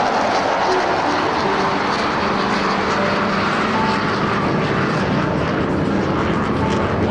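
Aircraft engines running loud and steady: an even rushing noise with a few faint steady whining tones on top.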